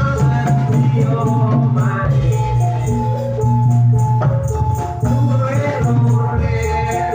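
Javanese jathilan music played loud, with melodic lines over a strong, heavy low bass and rattling percussion.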